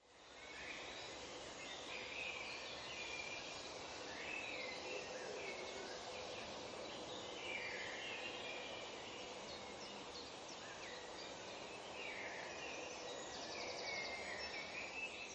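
Faint outdoor ambience: birds chirping repeatedly over a steady hiss, fading in over the first second.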